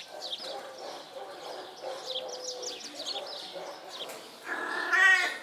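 Faint, short high chirps throughout, then near the end one loud, drawn-out animal cry that rises and falls in pitch.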